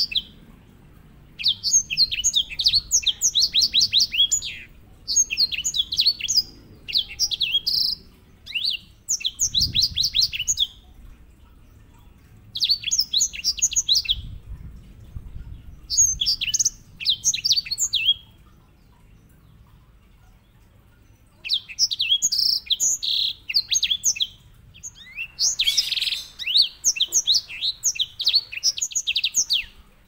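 Grey singing finch (white-rumped seedeater) singing its rolling song: repeated phrases of rapid, high trilled notes, each lasting one to three seconds, with short pauses between and a longer pause about two-thirds of the way through.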